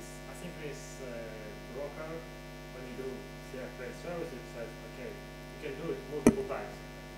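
Steady electrical mains hum in the sound system, with faint, distant speech underneath. A single sharp knock comes about six seconds in.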